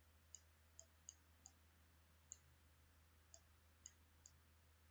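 Faint computer mouse clicks, about eight single clicks spaced irregularly, over a steady low hum.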